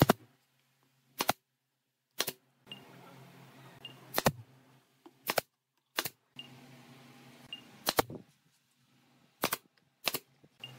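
DCA pneumatic brad nailer firing brads into the corners of a pine frame: about nine sharp shots at irregular spacing, roughly a second apart, some in quick pairs.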